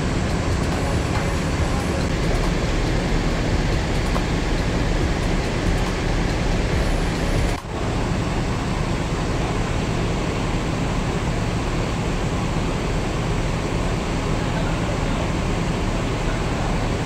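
Large bus diesel engine idling steadily, a low, even hum under general terminal noise, with a brief dip about seven and a half seconds in.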